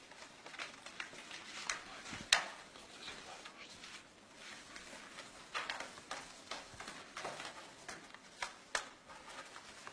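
Scattered short sharp clicks and rustles of paper documents and pens being handled, signed and passed across a wooden table, with one louder click about two seconds in.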